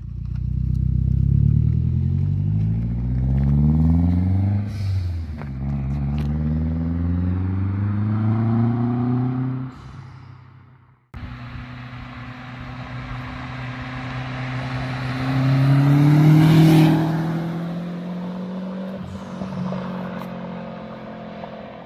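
A car engine accelerating hard, its revs climbing, dropping at a gear change about five seconds in and climbing again. After a sudden break, a car accelerates toward and past, loudest with a whoosh about two-thirds of the way through, then fades away.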